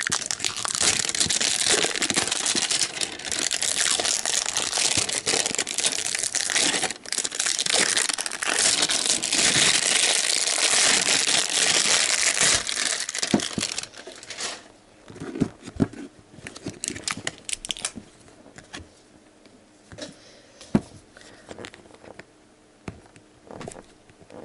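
Clear plastic shrink-wrap being peeled and crinkled off a cardboard toy tube, loud and continuous for about fourteen seconds. After that, only fainter scattered crinkles and taps.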